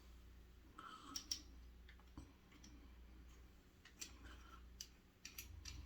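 Faint scattered clicks of a Pearl Flexor adjustable safety razor being handled as its bottom is unscrewed to free the blade.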